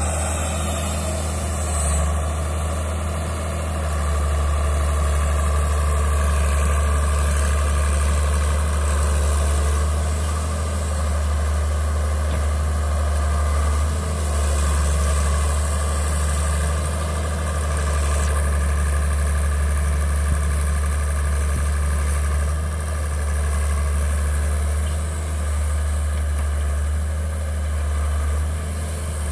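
Hitachi wheeled excavator's diesel engine running steadily while it digs, its level rising and falling slightly.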